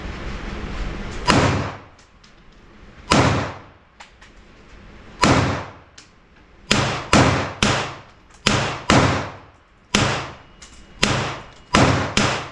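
Gunshots at a shooting range, about a dozen sharp reports each with a short ringing tail: at first spaced about two seconds apart, then coming faster and closer together from about the middle on.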